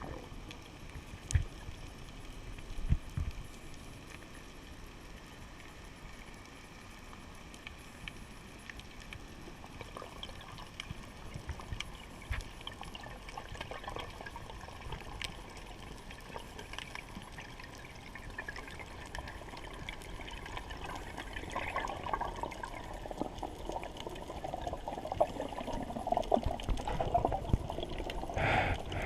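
Muffled water noise heard underwater through a camera's waterproof housing, with two sharp knocks in the first few seconds. The water noise grows louder and rougher over the last third.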